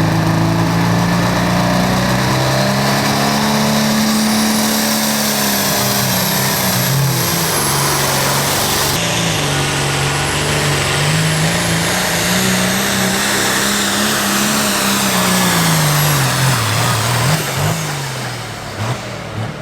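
Pro Farm class diesel pulling tractor running flat out under load, its engine pitch wavering as it drags the sled, with a thin high whistle over it; the engine eases off near the end.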